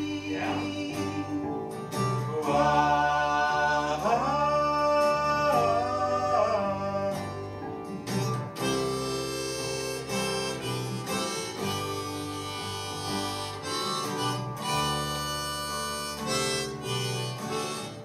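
Harmonica solo played from a neck rack over strummed acoustic guitars, the harmonica bending its notes up and down between about two and seven seconds in.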